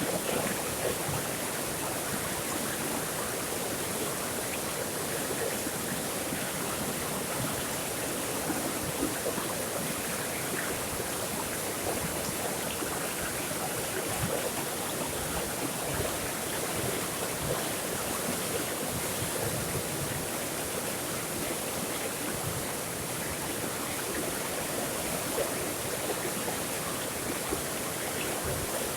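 Flowing water running steadily without a break, an even rushing sound.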